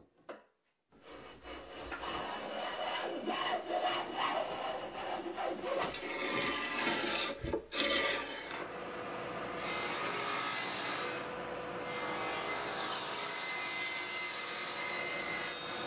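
Hand plane taking repeated shaving strokes along a wooden picture-frame molding to round over its corners. From about eight seconds in, a steadier cutting sound follows: the table saw cutting a ledge into the molding.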